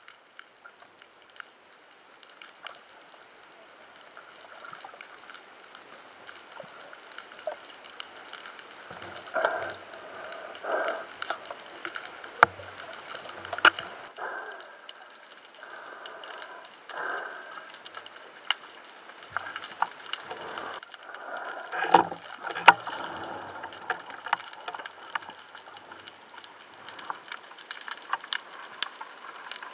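Underwater sound of a spearfisher swimming: a steady hiss with swishes of water. From about nine seconds in there are louder swells and sharp clicks and knocks, thickest around 9 to 14 and 21 to 23 seconds.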